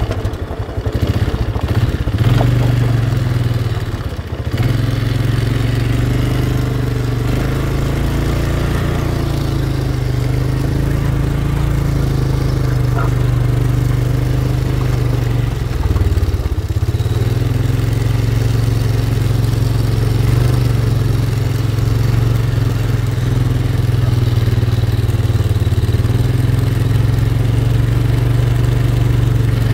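Polaris Magnum 500 ATV's single-cylinder four-stroke engine running steadily under way. Its speed dips briefly in the first few seconds and again about halfway through, then picks back up.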